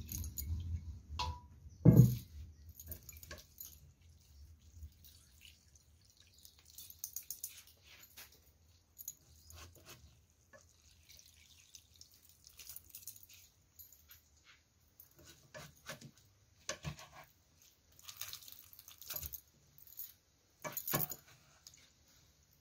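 Coconut milk pouring and dripping through a plastic sieve into a steel pot, with a sharp knock about two seconds in. After that, hands squeezing wet grated coconut in the sieve make soft, scattered squelches and drips.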